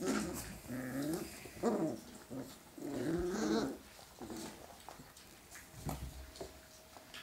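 Month-old Hungarian vizsla puppies play-fighting, giving short, wavering whines and yelps over the first few seconds. After that it goes quieter, with small scuffles and thumps as they wrestle.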